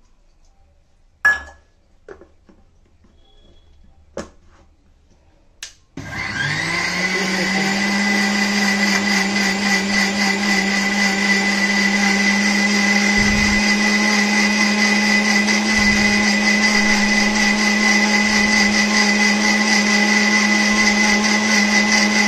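Sujata mixer grinder grinding mint leaves, green chillies, lemon juice and a little water into chutney: after a few sharp knocks, the motor starts about six seconds in, spins up quickly with a rising whine, then runs at a steady loud pitch.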